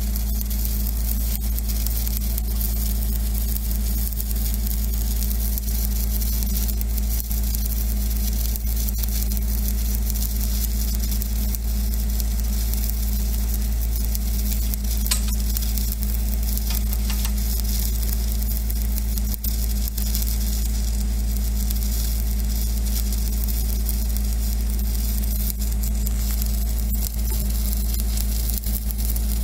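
Shielded metal arc (stick) welding with an E7018 electrode: a steady crackling sizzle from the arc as it runs without a break along a steel pipe butt weld, over a steady low hum.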